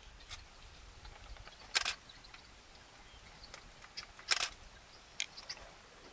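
A few short, sharp clicks over a faint outdoor background: a pair about two seconds in, a louder cluster a little after four seconds, and a couple of smaller ones soon after.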